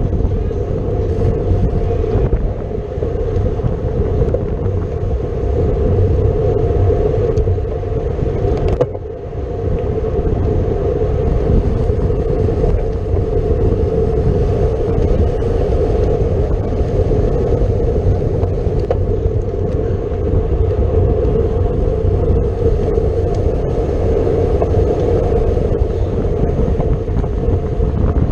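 Steady rumble of wind rushing over the microphone and tyre noise from a road bike ridden at race speed in a criterium, with a brief lull about nine seconds in.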